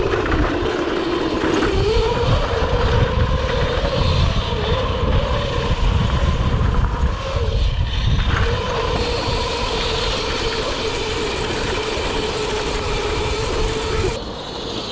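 CAKE electric motorbike's electric motor whining, the pitch wavering up and down with speed, over heavy wind buffeting and rumble from riding fast down a dirt trail. The sound thins about a second before the end.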